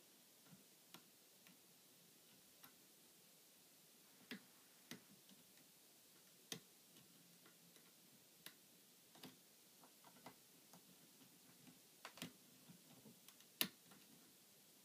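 Faint, irregular metallic clicks of a lock pick working the pins inside a Yale Maximum Security euro cylinder during single-pin picking, roughly one click a second, with a sharper click near the end.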